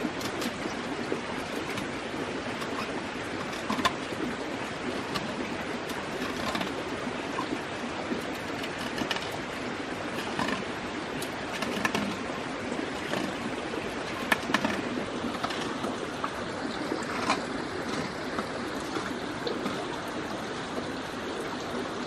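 Large jungle knife cutting and tapping into a green bamboo tube, a scatter of sharp, irregular knocks and chops, over a steady rushing background noise like running water.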